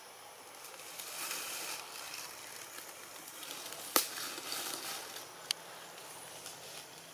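Long-tailed macaque biting and chewing a cob of corn: a sharp crunch about four seconds in and a smaller click about a second and a half later, amid soft crackling and rustling.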